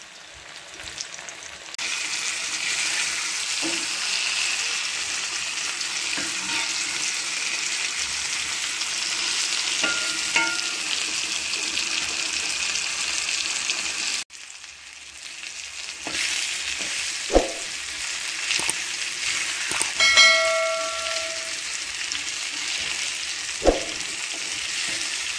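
Pomfret fish steaks shallow-frying in oil on a flat tawa, a steady sizzle that breaks off briefly about halfway and then resumes. Near the end, a couple of knocks from the spatula against the pan as the fish is turned, with a short ringing tone a few seconds before them.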